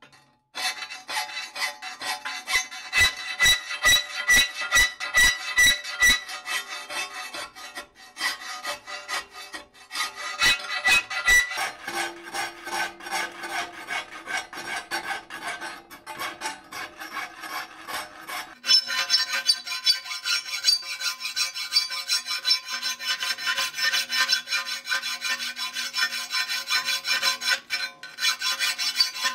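Hand files rasping back and forth on the chisel-cut edges of a thin steel plate held in a vise, a metallic ring running through the strokes. This is deburring: filing the raggedness off the cut-out face openings.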